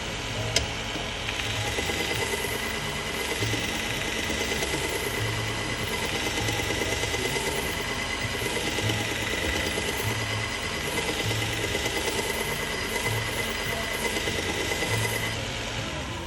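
AMK-75 belt sharpener running with a leather strop belt while a knife edge is stropped on it: a steady machine whir with a high steady whine through most of it and a low pulse about once a second.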